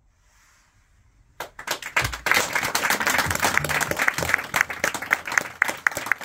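Small audience applauding: the clapping breaks out suddenly about a second and a half in, swells, and carries on, with one close pair of hands clapping sharply at an even pace near the end.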